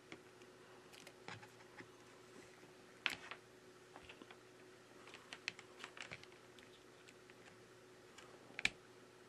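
Faint scattered clicks and taps of an iPhone 11 being handled as its display is closed down and pressed onto the frame, with a sharp click about three seconds in and a cluster of small taps a little later. Near the end another sharp click as a Lightning charging cable is plugged in. A faint steady hum runs underneath.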